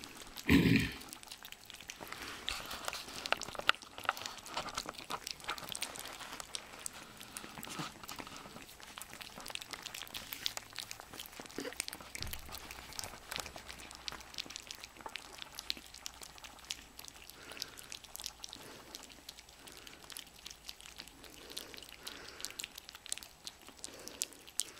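Several Bichon Frise puppies lapping and chewing wet puppy food from a plate: a busy, irregular run of small wet licking clicks and smacks. There is one brief, louder sound about half a second in.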